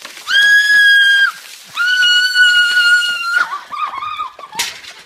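A girl screaming as a bucket of ice water is poured over her: two long, high-pitched, held shrieks of a second or more each, then a weaker, shorter cry.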